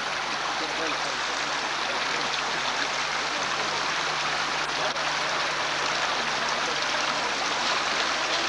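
Steady rushing background noise, with faint distant voices under it and a low steady hum.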